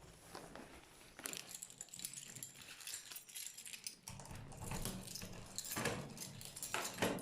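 Keys jangling and clicking, with a dog's excited noises growing louder about four seconds in.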